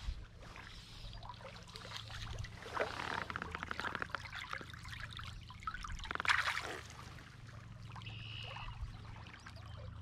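Shallow stream water trickling and splashing around a wading angler, with a louder splash about six seconds in as a hand goes into the water to take a small trout.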